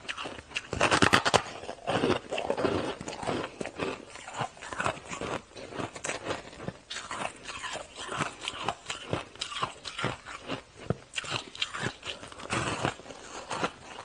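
Close-miked crunching and chewing of hard, frost-covered pink freezer ice, bitten off in chunks: a dense run of sharp crunches, loudest in a burst about a second in.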